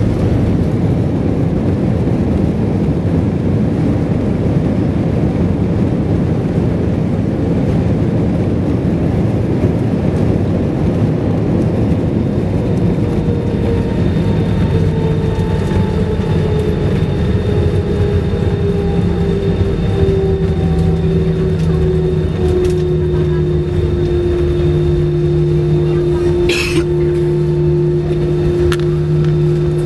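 Loud cabin noise of an Airbus A320 on its landing rollout: a steady rumble of the wheels on the runway and the airflow, with the engine tone slowly falling in pitch as the jet decelerates. A brief sharp click comes near the end.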